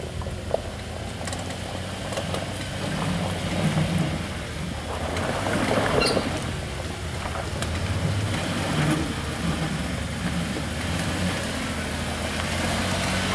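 Off-road vehicle's engine running steadily at low revs while rock crawling, with a few scattered clicks and knocks and a louder rush of noise about six seconds in.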